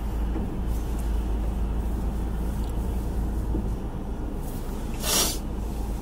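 Steady low rumble of a car idling, heard inside the cabin, with a faint steady hum over it. About five seconds in comes one short breathy hiss.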